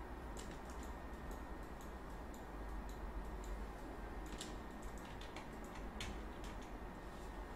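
Faint, irregular clicks of a computer mouse, a few each second, over a steady low hum.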